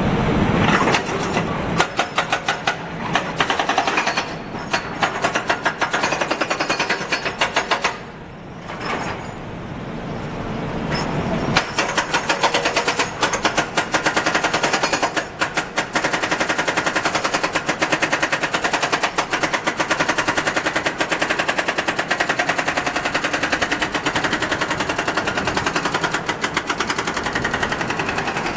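Hydraulic breaker on an electric excavator hammering rapidly against a steel ladle, breaking it. The hammering stops for a few seconds about a third of the way in, then starts again and keeps going.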